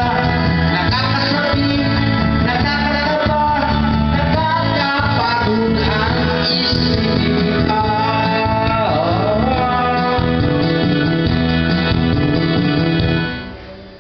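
A man singing karaoke into a microphone over a backing track played through a loudspeaker; the music fades out about a second before the end.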